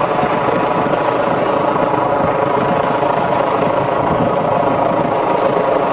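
Helicopter rotor and engine running steadily and loudly, with a fine rapid pulsing under a whining hum.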